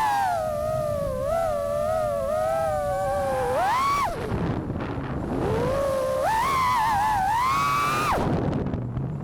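FPV quadcopter's brushless motors (Vulcan Innovation) whining, the pitch wavering and gliding with the throttle. Twice the whine climbs steeply and then drops off sharply as the throttle is chopped, about four seconds in and again near the end.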